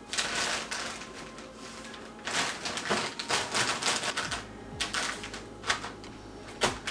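Oreo cookies being crushed with a can: irregular knocks and crunching as the cookies break into crumbs, coming in several clusters of strikes.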